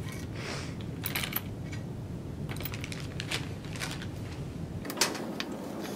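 Hand tools and small metal parts clicking and clinking as they are picked up and set down on a rubber workbench mat, with a brief rustle of a plastic parts bag near the start; the sharpest click comes about five seconds in.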